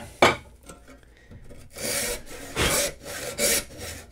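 A single sharp knock, then a brass-backed hand tenon saw rip-cutting down a tenon cheek in wood. The rasping saw strokes start a little under two seconds in and come at a steady pace, a bit more than one a second.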